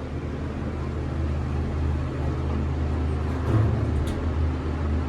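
Elevator car's ventilation fan running with a steady low hum and whir, which the rider calls "annoying". A short bump and a click come about three and a half to four seconds in.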